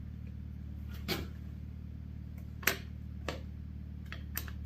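A handful of light, sharp clicks and taps from handguard parts and hardware being handled during fitting to the handlebars, spaced irregularly, over a steady low hum.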